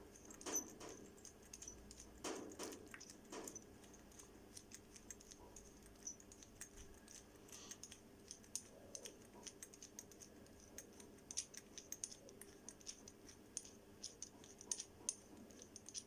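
Faint small metallic clicks and light scrapes, scattered and irregular, as the parts of a 1948 Transfo flint lighter are handled and fitted back together. A few louder clicks come in the first few seconds.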